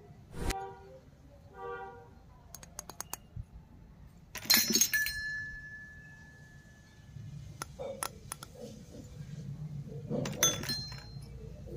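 Miniature stainless steel toy utensils clinking against each other as they are handled and set down. The loudest clink, about four seconds in, rings on as a clear tone for over a second; lighter ticks come between, and another ringing clink comes near the end.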